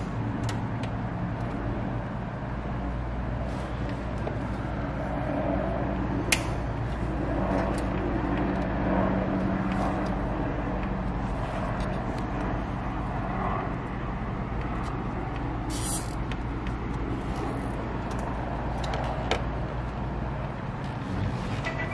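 A vehicle engine running with a steady low hum, broken by a few sharp clicks as work goes on inside the cab.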